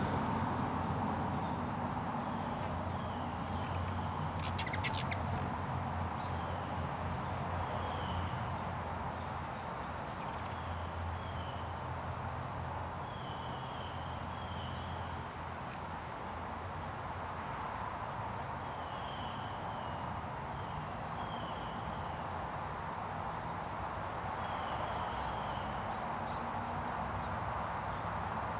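Small birds chirping off and on with short, high, falling notes over a steady low rumble of distant traffic. About four seconds in there is a brief burst of sharp clicks.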